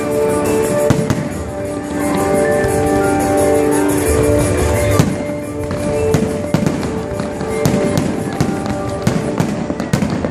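Fireworks going off in many sharp bangs and crackles, thickest in the second half, over music with long held notes.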